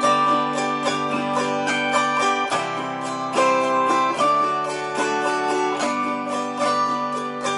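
Autoharp strummed alone with quick repeated strokes, its chords ringing on and changing every couple of seconds.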